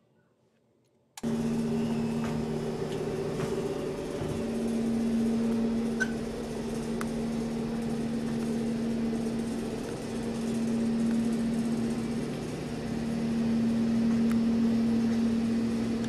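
Near silence for about a second, then a steady machine hum with hiss fills the lab room, with a couple of faint clicks partway through.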